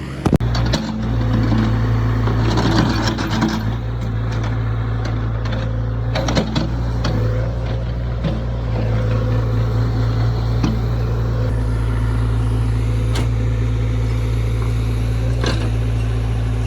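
Heavy truck engine running steadily, as from a concrete mixer truck on site, with scattered knocks and scrapes over it.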